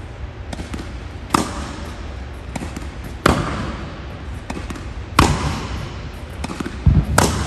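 Tennis ball struck by a racket in four backhand hits, about two seconds apart. Each sharp pop rings briefly in the hall, over a low steady rumble.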